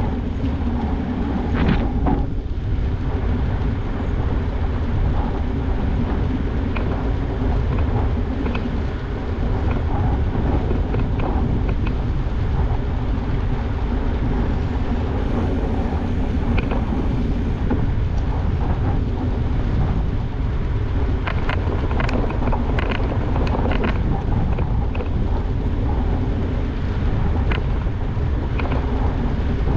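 Wind buffeting a GoPro Hero 8 Black's microphone on a moving mountain bike, over the steady hum of knobby tyres rolling on a concrete path. Scattered short clicks and rattles are heard, thickest in the last third.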